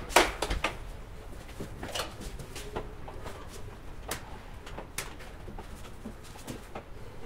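A fabric doormat being set down and pressed flat on a marble floor: light rustling with scattered soft knocks and taps, the sharpest in the first half-second.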